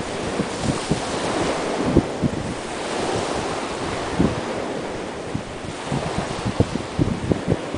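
Small waves breaking on a sandy beach in strong wind, a steady wash of surf with gusts buffeting the microphone in uneven low thumps.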